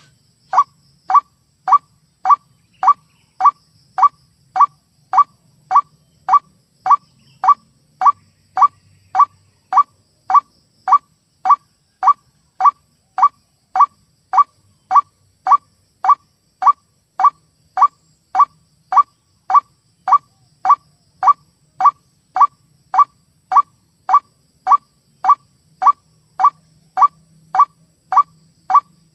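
White-breasted waterhen (ruak-ruak) call played back as a bird-trapping lure recording: one short harsh 'ruak' note repeated at an even pace, just under two a second.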